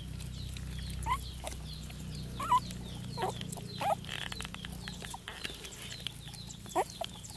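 Young puppies whimpering: short, high squeaks that slide in pitch, about seven spread over several seconds, the loudest about two and a half seconds in and near the end, over a steady low hum.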